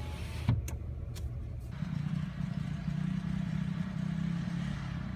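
Car engine and road noise from inside the car, with a sharp click about half a second in. From about two seconds in the engine note grows louder and higher.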